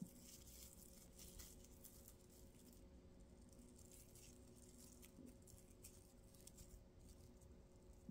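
Near silence, with the faint, scattered crackling rustle of a tinsel pipe cleaner being rolled and bent between the fingers.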